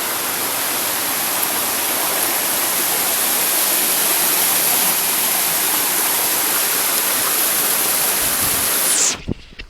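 Waterfall: a steady, loud rush of falling water that cuts off suddenly about nine seconds in.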